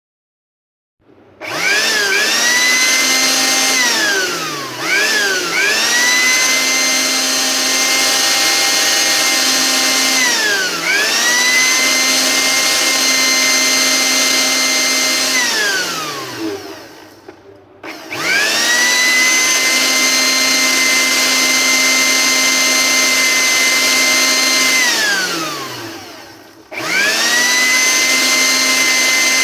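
Electric blender running on a jar of watermelon chunks, its motor whining steadily. It starts about a second in, is stopped and restarted a few times, winding down in pitch at each stop and rising again at each start.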